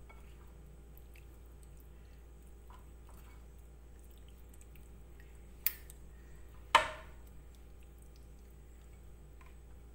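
Hands working a wet spice marinade into pieces of raw mackerel on a plate: faint wet squishing, with two sharp knocks a second apart about six and seven seconds in.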